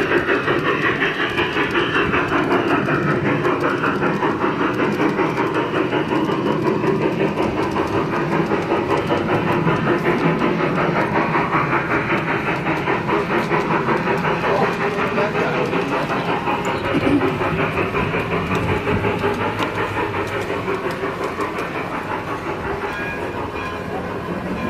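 G-scale garden railway train running, with a steady rhythmic clicking and clacking along the track.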